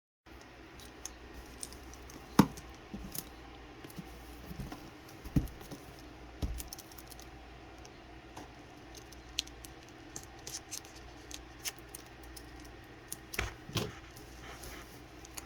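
Cardboard keyboard box being handled and opened: scattered scraping and rustling with a few sharp knocks, the loudest about two and a half seconds in.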